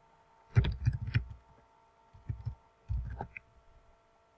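Computer keyboard typing: three short bursts of keystrokes, over a faint steady electrical hum.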